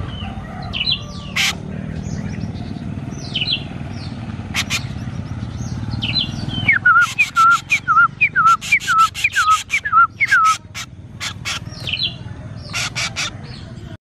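Young drongo calling: scattered high chirps, then, about halfway through, a quick run of about a dozen short repeated notes, each with an upward flick, mixed with sharp clicks. A low steady hum underneath cuts off when the run of notes begins.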